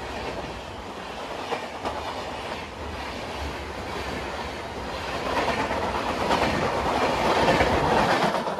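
Passenger coaches of an express train rushing past at speed close by, wheels clattering over the rail joints with a steady rushing noise that swells louder over the second half.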